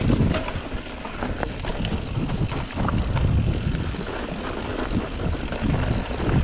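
Mountain bike rolling fast down a dirt singletrack: tyre noise on the dirt with the bike rattling in many short sharp clicks, under a rough low rumble of wind on the microphone.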